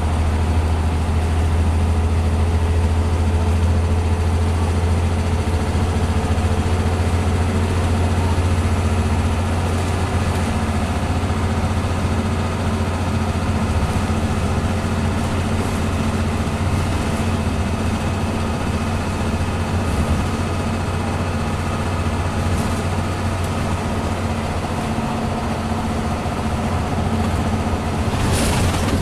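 Scania CN94UB Omnicity bus engine and driveline running steadily at cruising speed, heard from inside the saloon as a low drone with road noise. There is a short rush of noise near the end.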